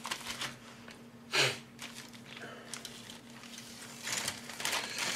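Clear plastic kit bag crinkling and rustling as a plastic parts sprue is handled. There is one short, louder rush of noise about a second and a half in, and scattered rustles and light clicks near the end.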